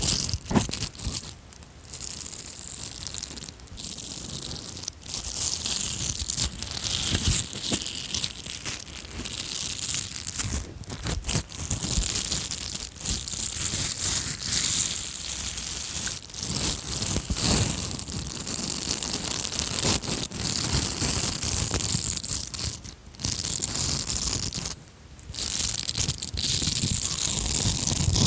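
Close-miked crinkling and rustling of an object being squeezed and handled, in runs of a few seconds broken by short pauses.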